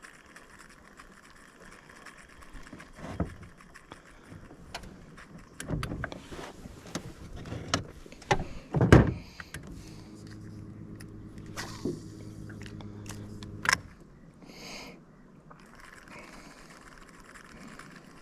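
Knocks and clatter of fishing gear being handled in a small boat, with a loud thump about nine seconds in, followed by a steady mechanical hum for about four seconds.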